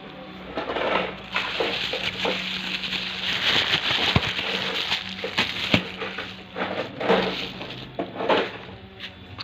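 Packaging being opened and handled during an unboxing: irregular crinkling and rustling, with a few sharp knocks and clicks.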